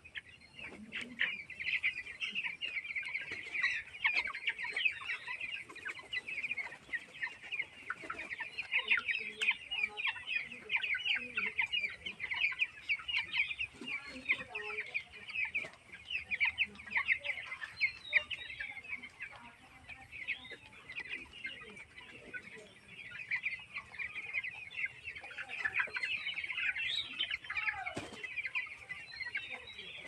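A flock of 18-day-old broiler chicks peeping continuously, a dense chorus of rapid, high chirps overlapping one another, with a single knock near the end.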